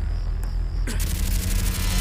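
Trailer soundtrack: a steady low rumbling drone, then about a second in a loud rush of hissing noise starts and holds.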